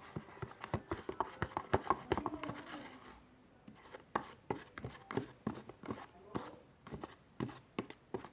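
Utensil stirring contact lens solution in a bowl, with irregular light clicks and scrapes against the bowl, several a second, pausing briefly about three seconds in.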